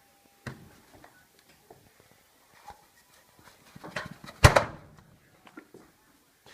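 Clicks and knocks of a cordless vacuum cleaner being handled before it is switched on, with a loud clatter about four and a half seconds in.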